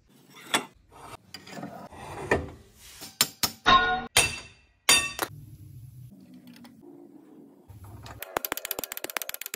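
Metal clanks of a long steel pipe striking the old rear wheel bearing inside the axle tube to knock it out, some strikes ringing. Near the end, a fast run of light metallic taps.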